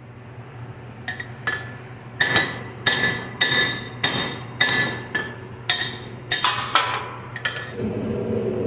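Hand hammer striking iron on an anvil, about a dozen blows at roughly two a second, each blow ringing with a bright metallic tone. A low steady hum runs underneath, and a louder steady drone comes in near the end.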